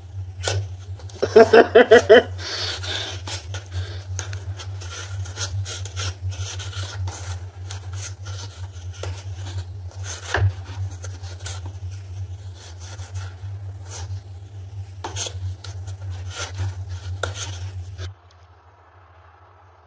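A cat's claws scratching, tapping and scraping at a cardboard box in quick irregular clicks. About a second in comes a short pulsing vocal sound, the loudest thing heard, and a low hum runs underneath until it cuts off near the end.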